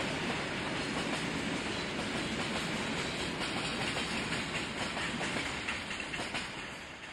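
Diesel-hauled freight train of tank wagons rolling past, the wheels clattering over rail joints and points with a steady rumble, fading away near the end.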